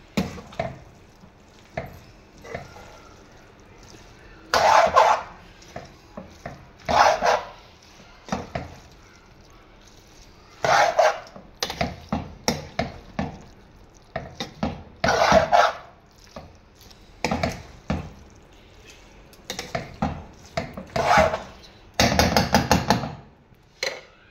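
A metal spoon stirring macaroni in a non-stick frying pan, scraping and knocking against the pan in irregular strokes every second or two. The longest scrape comes near the end.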